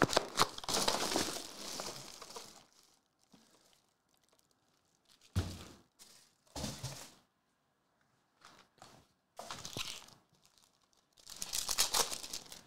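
Foil wrappers of Select soccer trading card packs crinkling and tearing as they are handled and ripped open. The noise comes in separate bursts, a longer one at the start and another near the end, with short ones in between.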